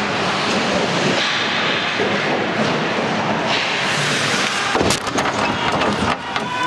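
Ice hockey game noise in a rink: a steady rushing din of play on the ice, with one sharp bang a little under five seconds in.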